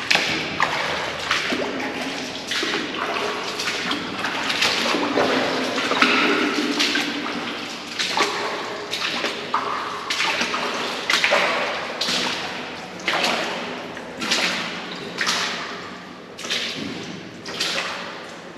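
Boots wading through shallow standing water, a splash and slosh with each step, each fading out with some echo. The steps settle into about one a second in the second half.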